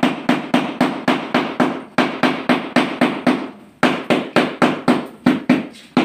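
Rubber mallet tapping a polished stone countertop slab in quick, even blows, about four a second, with a brief pause a little over halfway through. The slab is being seated level, checked with a spirit level lying on it.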